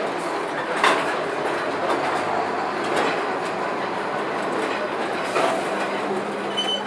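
A wood-chip truck with its high-sided trailer passing close and pulling away: steady tyre and road noise, with a few sharp knocks and rattles from the trailer.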